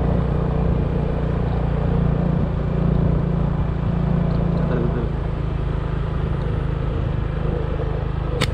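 Motorbike engine running steadily while riding, with wind and road noise rushing over the microphone. A single sharp click comes near the end.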